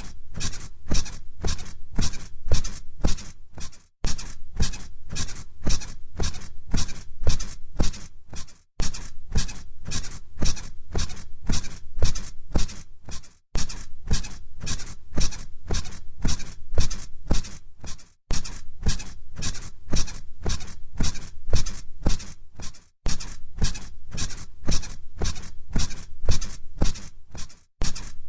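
Bed springs and mattress squeaking in a steady rhythm, about two squeaks a second, as someone bounces on the bed. There is a brief break about every five seconds.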